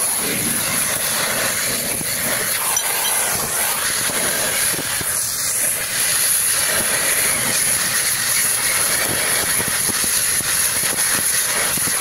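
Oxy-fuel gas torch burning with a loud, steady hiss as its flame heats the bearing collar on a rear axle shaft. The hiss starts and cuts off abruptly.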